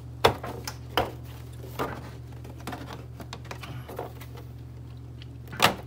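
Plastic engine cover of a Mercedes C300 W205 being pulled off its mounts by hand: scattered clicks and knocks of hard plastic, the loudest near the start and just before the end. A steady low hum runs underneath.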